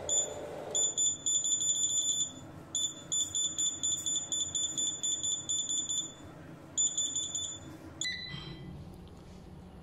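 Crown Xavier 5.6 kW hybrid inverter's touch keypad beeping as its keys are pressed to scroll through a setting. The beeps are rapid and high-pitched and come in three runs, the last one ending about eight seconds in.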